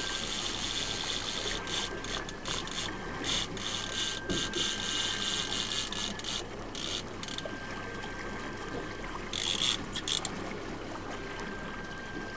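Fishing reel ratcheting, irregular bursts of quick clicks as line is worked, over the low steady hum of the trolling boat.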